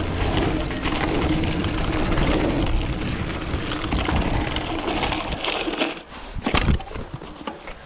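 Mountain bike riding on a gravel forest trail: wind buffeting the action camera's microphone over tyres crunching on gravel and the bike rattling. The rushing dies down about six seconds in, leaving crunches and a few sharp knocks.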